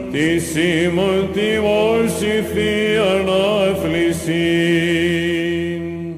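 Greek Orthodox chant: a sung melodic line with ornamented turns over a steady low held drone, closing on a long held note that fades away near the end.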